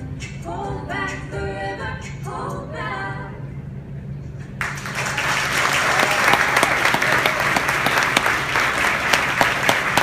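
Women's a cappella group singing the last phrases of the song, the final chord dying away at about three and a half seconds. About a second later the audience's applause starts suddenly and carries on, louder than the singing.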